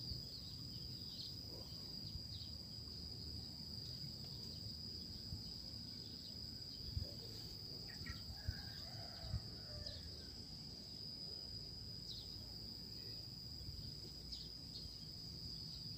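Insects keep up a steady, high-pitched trill over a low outdoor rumble, with a few soft knocks midway.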